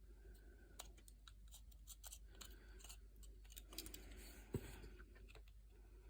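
Swiss Army knife blade cutting into basswood in short strokes: faint scratchy slicing with small clicks, and one sharper click about four and a half seconds in.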